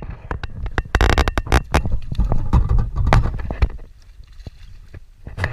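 Irregular knocks, scrapes and splashes as a hooked fish is fought and brought alongside a small boat on a bent spinning rod, busiest in the first three and a half seconds, over a low rumble.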